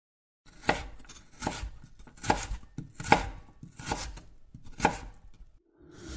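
Knife chopping food on a cutting board: a steady run of sharp strokes, the firmest about one every 0.8 seconds with lighter taps between, starting about half a second in and stopping shortly before the end.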